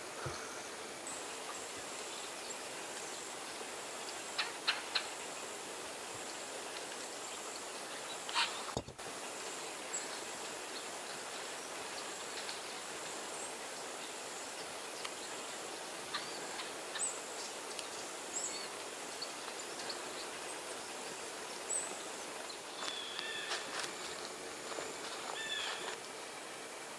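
Woodland ambience: a steady high insect whine, with short bird chirps scattered through it and a cluster of them near the end.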